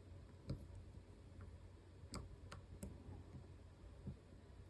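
Faint, scattered clicks of a lock pick probing the spring-loaded sliders inside an EVVA ICS lock cylinder, about five light ticks over a few seconds.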